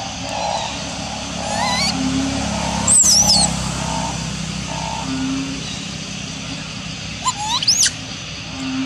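Long-tailed macaques squealing: high, wavering squeals about three seconds in and again near the end, over a steady low background drone.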